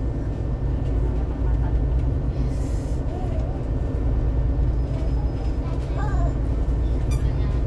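A Transjakarta double-decker city bus running on the road, heard from inside the passenger cabin as a steady low engine-and-road rumble. A brief hiss comes about two and a half seconds in, and a sharp click comes near the end.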